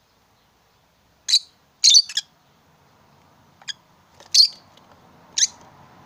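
Rosy-faced lovebirds giving short, high-pitched chirping calls, about seven in all, including a quick cluster of three about two seconds in.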